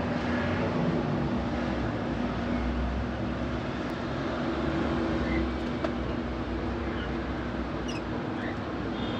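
A steady background hum with a low drone, and over it a few faint short chirps and clicks from grey cockatiels.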